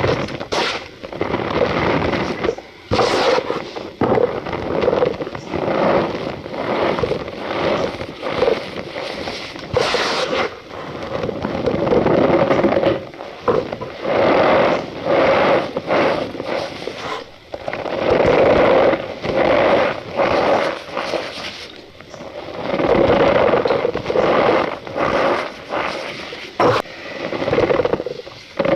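Cornstarch powder squeezed and crushed by hand, making a squeaky crunching sound in repeated squeezes with short pauses between them.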